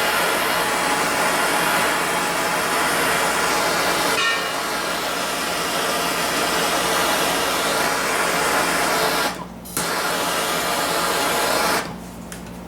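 MAPP gas torch burning with a steady, loud hiss. It drops out briefly about two-thirds of the way through, then cuts off near the end.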